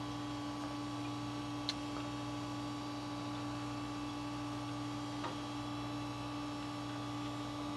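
Dell OptiPlex GX110 desktop computer running while it boots: a steady hum with a couple of faint ticks.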